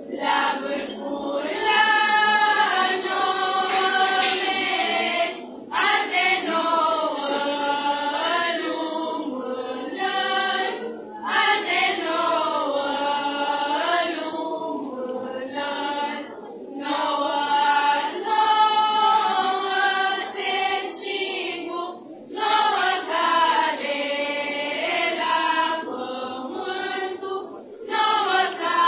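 A group of women singing a Romanian colindă (winter carol) together without instruments, in phrases of about five seconds with short breaks between them.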